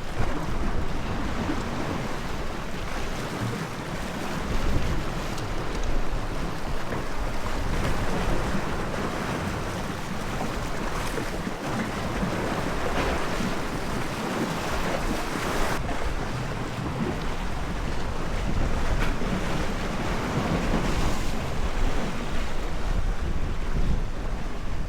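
Sea waves washing against the shore, with wind buffeting the microphone in a steady low rumble.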